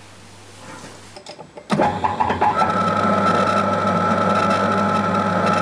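Old Craftsman metal lathe running, turning a cast iron backplate with an internal-threading tool in its bore. The sound starts abruptly about two seconds in, after a quiet stretch, and runs as a steady whine over a low hum.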